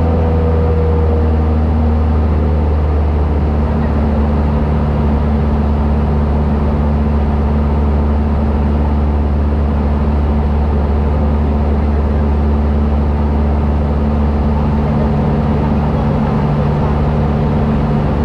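Cessna light aircraft's engine and propeller droning steadily inside the cabin, a loud low hum with a few steady tones, its pitch shifting slightly in the first couple of seconds.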